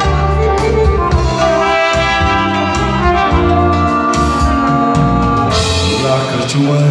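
Live band music: a trumpet plays the melody over a drum kit.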